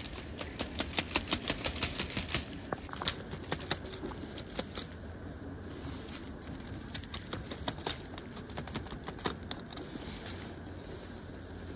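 Knife blade cutting and prying at a clump of grass stems and roots in the soil: a fast run of crisp strokes, about five a second, for the first few seconds, then slower scattered ones.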